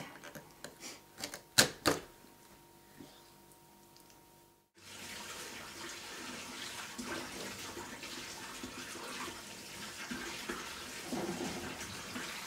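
A knife blade cracks through a young sea bream's head and knocks on the wooden cutting board: several sharp clicks, the loudest two close together about two seconds in. Then, a little under five seconds in, a kitchen tap starts running steadily, splashing over the fish as it is rinsed in the sink.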